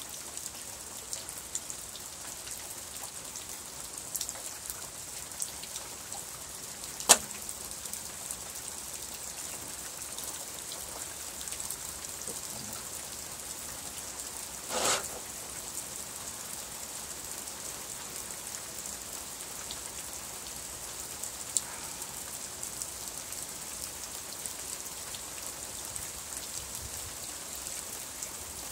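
Steady rain falling, an even hiss. A single sharp click about seven seconds in, a short louder scrape about halfway through, and a fainter click a few seconds later.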